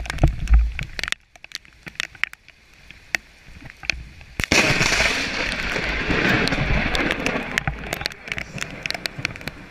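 Rain clicking close to the microphone, then about four and a half seconds in a sudden close lightning strike: a sharp crack followed by loud thunder that rumbles on and slowly fades over about four seconds.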